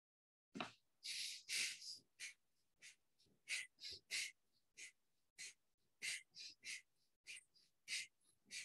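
Bhastrika (bellows breath) pranayama: a string of short, forceful breaths in and out through the nose, about two a second, each a sharp hiss.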